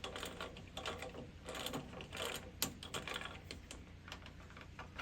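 Vicmarc VM150 four-jaw wood chuck being turned by hand to back out a jaw, its metal scroll, gear and jaw giving faint, irregular clicks and ticks.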